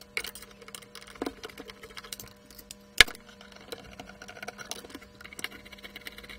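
Irregular clicks and light knocks of plastic and sheet-metal parts being handled, with one sharp click about three seconds in, as the cholesterol analyser's plastic drive sled and small DC drive motor are worked loose from the metal chassis.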